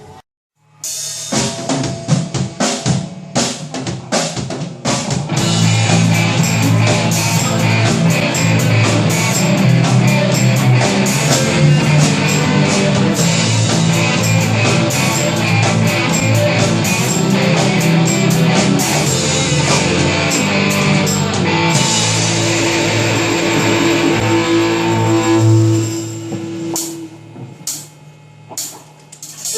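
Luk thung band with drum kit, electric guitars, bass guitar and keyboard playing: a run of drum hits opens it, the full band comes in about five seconds later, and it drops away near the end.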